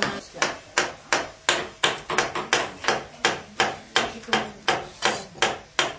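A wooden carving mallet striking a gouge into wood, in a steady rhythm of about three sharp knocks a second.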